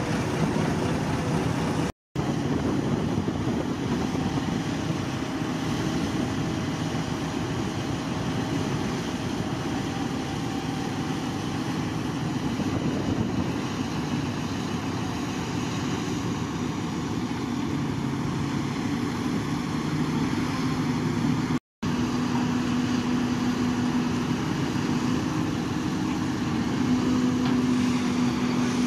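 Heavy crane truck diesel engines running steadily, broken by two brief silent gaps.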